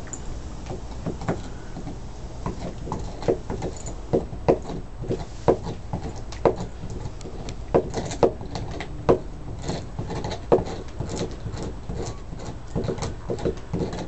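Bernese Mountain Dog puppy gnawing on a pig bone: irregular crunches and clicks of teeth on bone, a few a second.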